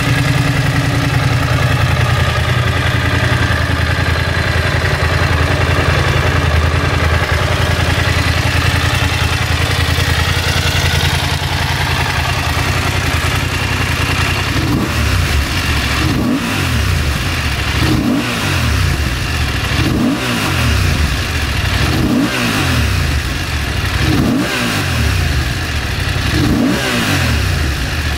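BMW F 750 GS's 853 cc parallel-twin engine idling steadily, then blipped over and over in the second half: a quick rev about every two seconds, each falling straight back to idle.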